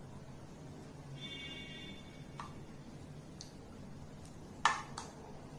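Metal spoon knocking and scraping against a small steel saucepan while thick mango phirni is spooned into clay bowls: a faint ringing tone early on, a small click, then one sharp knock near the end, over a low steady hum.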